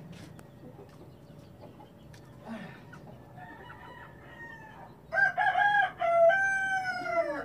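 Gamefowl roosters crowing: a fainter crow a few seconds in, then a loud full crow starting about five seconds in, a few short broken notes followed by a long held note that falls away at the end.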